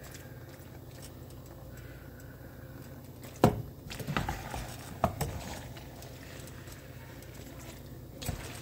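A few sharp clinks and knocks of a utensil against a cooking pan: one loud knock about halfway through, a small cluster just after, and one more near the end, over a steady low hum.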